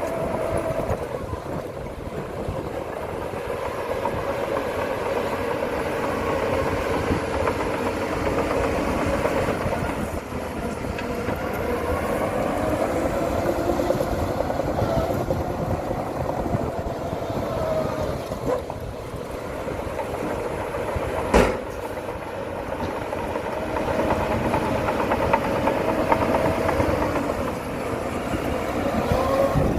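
Diesel engine of heavy earthmoving machinery working, its pitch rising and falling repeatedly as the load and revs change, with one sharp bang about two-thirds of the way through.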